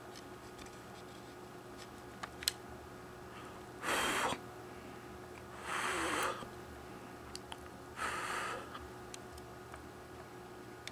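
Three short, noisy breaths of air about two seconds apart, a person exhaling or blowing hard, over a faint steady hum and a few small clicks.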